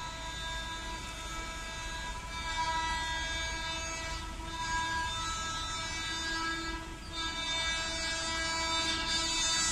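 Horn of an approaching Indian Railways multiple-unit train, held long and steady with slight swells in loudness.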